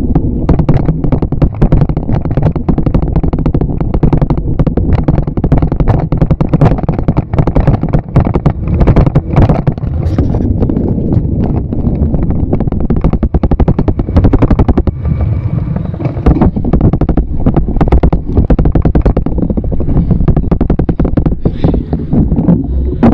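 Continuous rattling and rumbling from a camera riding in a bicycle's front basket as the bike rolls over asphalt, with dense rapid knocks over a heavy low rumble.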